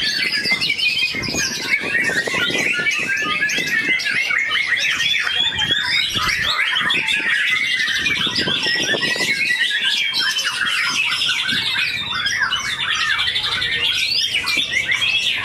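Many white-rumped shamas singing at once, a dense unbroken tangle of quick overlapping whistles, chirps and trills.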